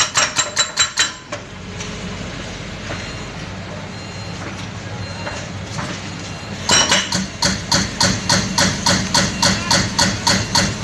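Heavy diesel machinery running with a steady low hum, and a regular knocking about two and a half times a second for the first second and again from about seven seconds in.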